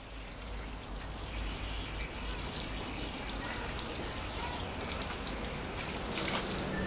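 Water running from a garden hose and splashing as a man rinses his head and face under it, spattering into a plastic bucket below: a steady splashing with many small drips and spatters.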